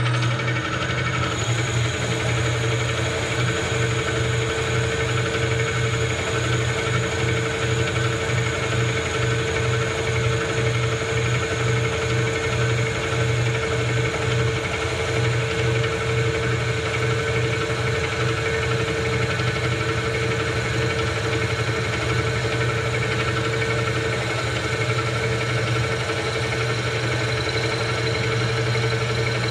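Milling machine spindle driving a twist drill into a two-stroke crankshaft's flywheel to drill a balancing hole: a steady motor hum with a higher whine.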